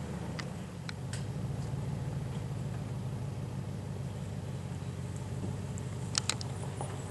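Engine idling steadily just after being started, a low rumble with a fast, even beat. A few sharp clicks are heard about a second in, and a louder pair near the end.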